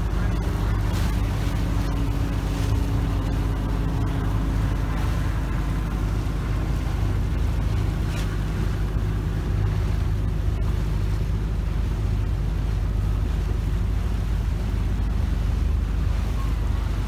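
Steady low hum of a small boat's motor under way, with a rumble of wind and water beneath it.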